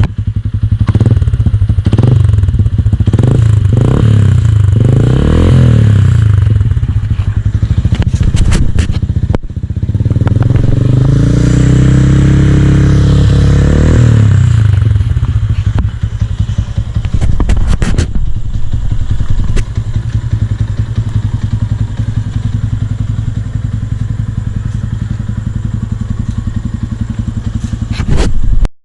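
Yamaha Sniper 150's single-cylinder four-stroke engine running through a Mody5 aftermarket power pipe exhaust. Several quick throttle blips come first, then a longer rev held for a few seconds midway, then it settles to a steady low idle.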